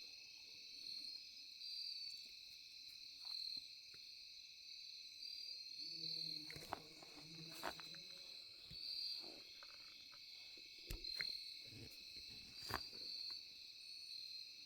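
Night insect chorus of crickets, a steady high-pitched trill with a pulsing edge. A few sharp clicks and knocks come about halfway through, and a brief low-pitched sound about six seconds in.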